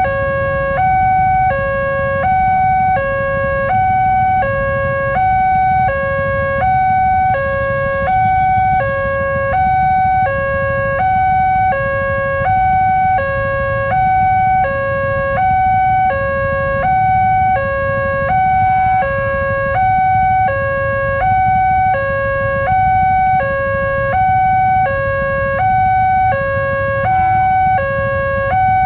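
Railway level-crossing warning siren sounding a steady two-tone alarm, alternating high and low about every half second without pause, over a low traffic rumble. It warns that a train is approaching the crossing.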